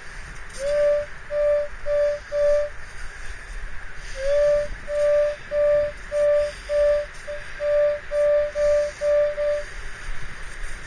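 Beach metal detector's target tone: a mid-pitched beep repeating as the coil sweeps back and forth over the target, four beeps, a pause of about a second and a half, then about ten more. The mid-tone marks a mid-conductivity target, here a nickel.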